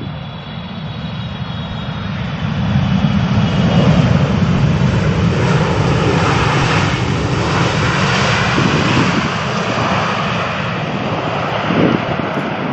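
Jet airliner's engines passing close by: a faint high whine at first, then a broad rushing noise that swells over the first three seconds, holds strong through the middle and begins to ease near the end.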